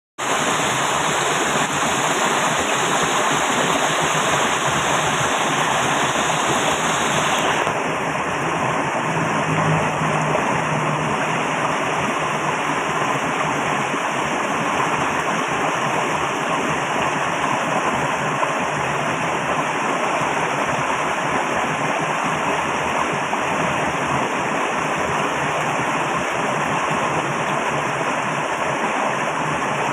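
Flowing water rushing steadily, very loud, an even wash of noise with no let-up. About seven seconds in, the brightest top of the hiss drops slightly.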